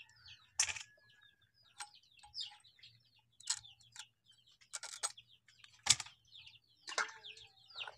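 Scattered chirps of small birds and occasional hen clucks, with a few short sharp knocks or scrapes, the loudest about six seconds in.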